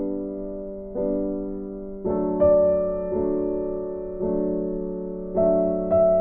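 Slow, gentle piano music: soft chords struck about once a second, each left to ring and fade before the next.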